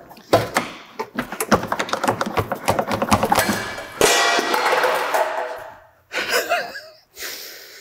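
A steel exhaust muffler being wrenched off its cut pipe, with rapid metal knocks and rattles. About four seconds in comes a loud metal clang that rings on for about two seconds.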